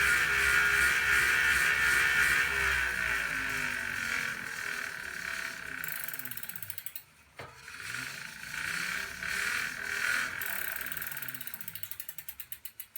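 Tacx Booster turbo trainer with a bicycle's rear wheel spinning on the roller: a loud steady whine, which the owner cannot account for on a unit about a year old, falls in pitch and fades as the wheel coasts down. Near the end the freehub ticks, slower and slower, as the wheel comes to rest.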